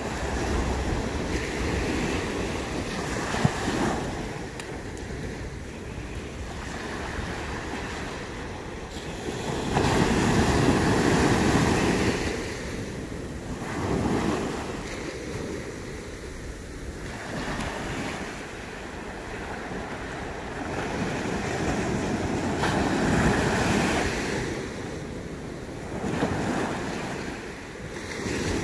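Ocean surf on a sandy beach: small waves breaking and washing up the shore, swelling and fading every few seconds, with some wind buffeting the microphone.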